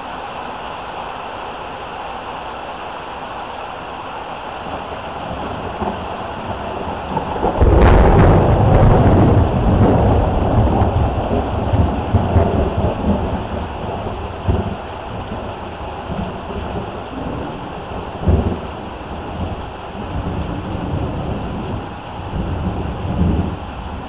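Steady heavy rain, then a thunderclap cracks suddenly about seven and a half seconds in and rolls into a long low rumble with several swells that slowly dies away.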